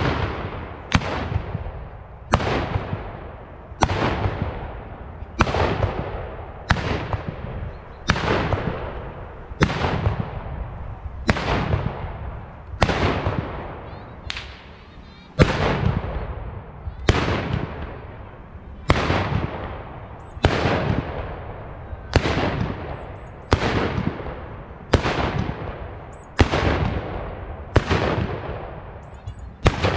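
Black-powder Böller (ceremonial salute guns) fired one after another along a line of shooters: a sharp bang roughly every second and a half, each trailing off in a long echo.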